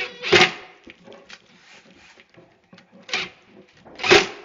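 A screw being driven through the drawer box into a wooden drawer face in a few short bursts, with the clatter of the drawer being handled between them.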